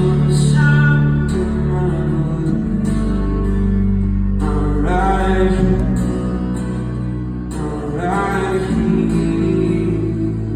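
Live band music: a voice sings three long rising phrases over guitar and held low chords.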